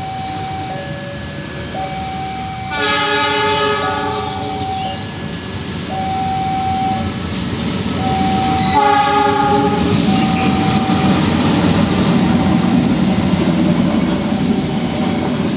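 Railway level-crossing warning alarm alternating steadily between two tones. A train sounds its horn twice, one blast about three seconds in and another about six seconds later. The rumble of the passing train on the rails then builds and takes over.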